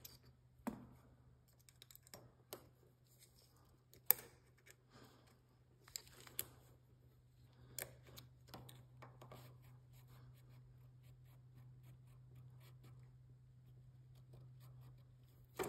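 Faint scattered metal clicks and scrapes of a socket wrench and screwdriver at work on the rocker-arm valve adjuster and lock nut of a Briggs & Stratton V-twin engine, over a faint low steady hum.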